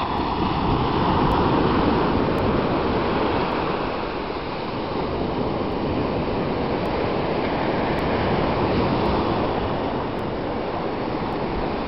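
Small sea waves breaking at the shoreline and foam washing up over wet sand, a steady rushing surf that is loudest a second or two in.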